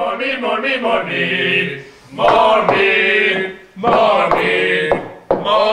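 Male voices chanting a sung melody in a few phrases, with long held notes about two seconds in and again near four seconds.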